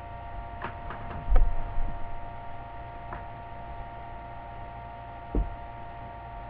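Steady electrical mains hum with several constant whining tones, picked up on the recording, with a few faint clicks and two soft low thumps about one and a half and five and a half seconds in.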